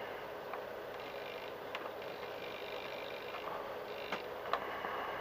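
A few small, sharp clicks and taps of plastic linkage parts as a clevis is worked onto a control horn, over a faint steady hum.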